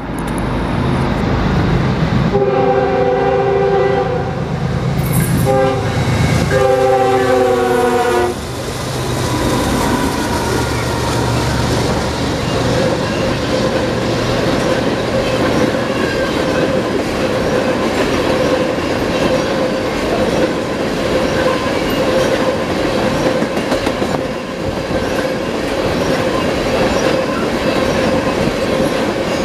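A BNSF freight train's diesel locomotive sounds its multi-chime air horn in three blasts, long, short, long, as it approaches. Then a long string of crude-oil tank cars rolls past with a steady rumble and clatter of wheels on the rails and a faint steady whine.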